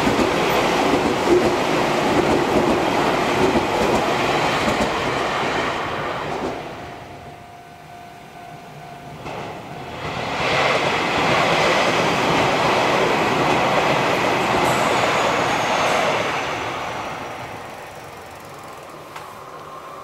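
Two Keio Inokashira Line 1000 series electric commuter trains pass over a level crossing one after the other. The first rolls by and fades after about six seconds. The second comes through from about ten seconds in and dies away near the end. In the quieter gap between them a steady ringing tone is heard, fitting the crossing's warning bell.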